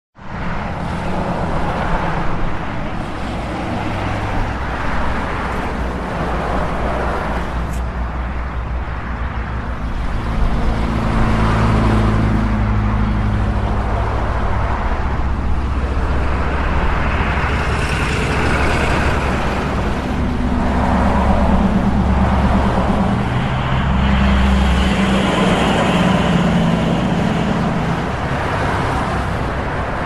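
Urban street traffic: vehicle engines running in a continuous low hum, with traffic noise swelling and easing as vehicles move along the road.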